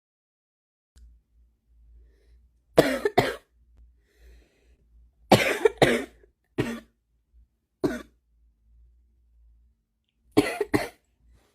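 A woman coughing in short bouts: two coughs about three seconds in, three more around six seconds, one near eight seconds and two more near the end. It is a smoker's morning cough.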